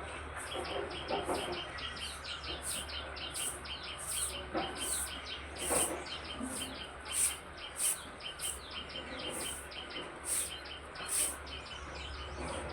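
Songbirds chirping: a fast run of short chirps, several a second, with sharper high-pitched calls repeating throughout, over a steady low hum.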